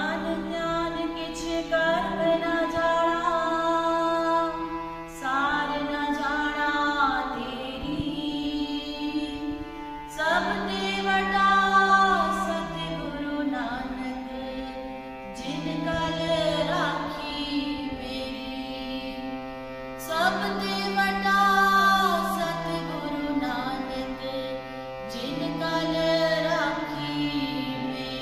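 Group of women singing a Sikh shabad (kirtan) together, accompanied by a harmonium's held notes and tabla, with a new sung phrase starting about every five seconds.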